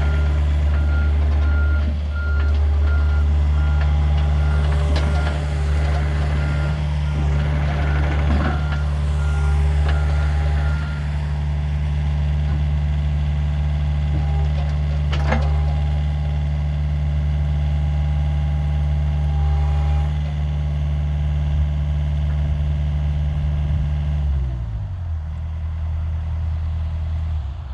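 John Deere 50G mini excavator's diesel engine running steadily, with its travel alarm beeping at an even pace for the first ten seconds or so and a couple of metallic knocks. Near the end the engine is throttled down and its note drops to a lower idle.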